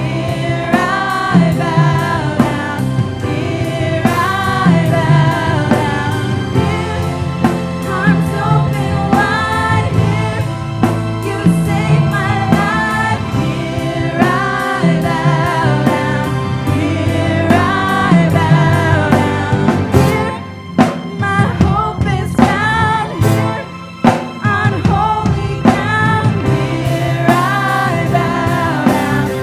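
A worship band plays a Christian gospel-style song, with singing over a drum kit and bass. The band briefly cuts out twice a little over two-thirds of the way through.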